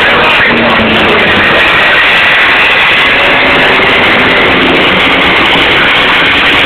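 Racing engines running loud and steady, heard through an overloaded phone microphone.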